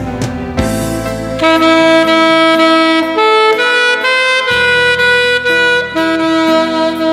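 Alto saxophone playing a slow melody of long held notes over backing music.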